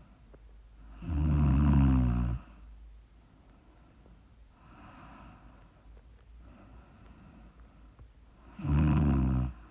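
A sleeping woman snoring: two loud, rattling snores, each a little over a second long and about seven seconds apart, with a faint breath in between.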